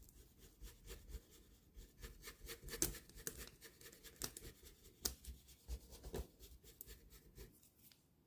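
Paintbrush working paint onto the painting surface: faint, irregular taps and scratchy strokes, stopping near the end.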